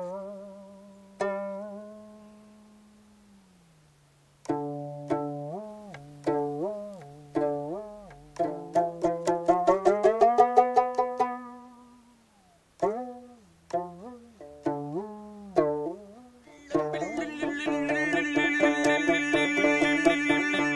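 Music: a plucked string instrument plays a slow, free melody of single notes, with sliding pitches and vibrato over a low note that also glides, pausing between phrases. About 17 seconds in, a fuller, sustained texture of several instruments comes in.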